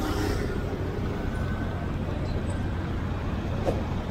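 A motor vehicle engine running steadily, a low hum under street traffic noise.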